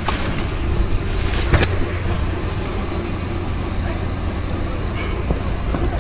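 A steady low engine rumble, with a few sharp knocks on top, the loudest about a second and a half in.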